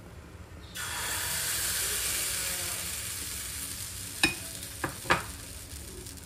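Pancake batter sizzling in a hot pan. The sizzle starts suddenly about a second in and slowly fades, with three sharp clicks near the end.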